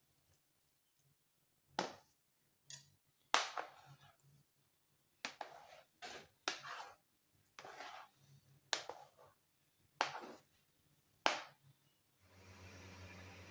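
Spinach paste being ground and scraped on a plastic cutting board, first with a hand-held grinding stone and then with a spatula: about a dozen separate short rasping strokes. A steady low hum comes in near the end.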